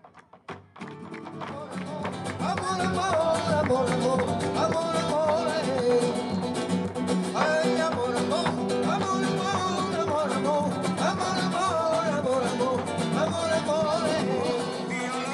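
Live flamenco music: a singer's wavering, ornamented voice over acoustic guitar, with rhythmic hand clapping (palmas). The music drops out briefly near the start, then builds back in.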